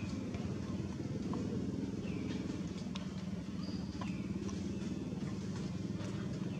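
A motor running steadily, a constant low hum that does not change, with a few short, high, falling chirps over it.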